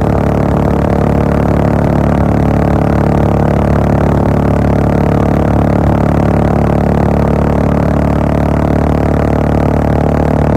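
Royal Enfield Bullet 500's single-cylinder four-stroke engine through a Gold Star full-system exhaust, cruising at a steady speed with an even, unchanging drone.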